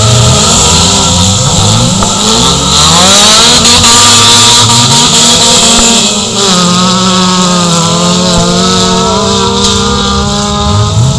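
Several dirt-track race car engines running hard, their revs rising and falling as the cars accelerate out of and lift into corners. One climbs sharply about two to three seconds in, and one holds a steady high note through the second half.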